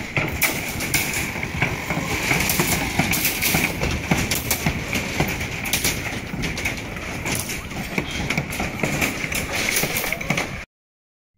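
Construction site noise on a rebar deck: frequent small clicks and metal clatter from work on the steel mesh over a steady background hum. It cuts off suddenly to silence near the end.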